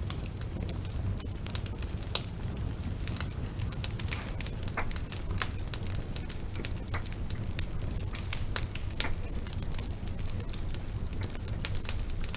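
Wood fire crackling in a fireplace: frequent sharp pops and snaps over a steady low rumble of burning, with one louder pop about two seconds in.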